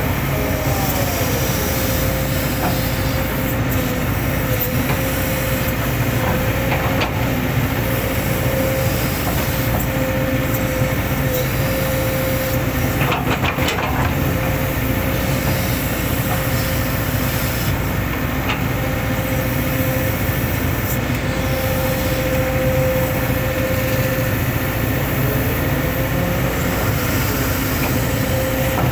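Hitachi hydraulic excavator working, its diesel engine running steadily with a constant high whine over the low rumble. There is a short cluster of knocks about halfway through.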